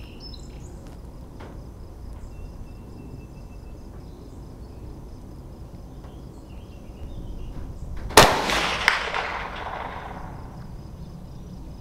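A single shot from a Mossberg 640K Chuckster .22 Magnum bolt-action rifle about eight seconds in: a sharp crack followed by an echo that dies away over about two seconds.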